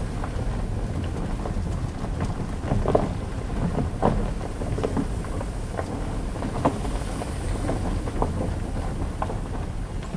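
A vehicle rolling along a dirt road: steady low rumble of tyres and engine, with frequent small knocks and rattles from the rough surface.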